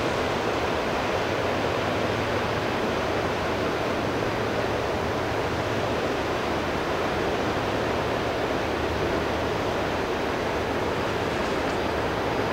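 A steady, even rush of water and wind noise with a faint low hum beneath it, unchanging as the long hull of a bulk carrier barge slides past close to shore.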